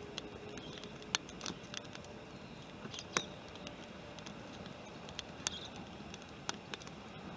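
Wood campfire crackling: irregular sharp pops and ticks over a faint hiss.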